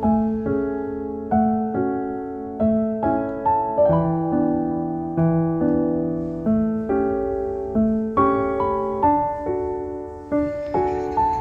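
Background music: a gentle solo piano melody in waltz-like time, each note struck and left to fade.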